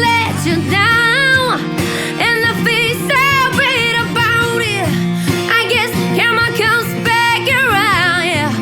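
A woman singing wordless vocal runs with wide vibrato over guitar accompaniment, in a live acoustic cover of a pop song.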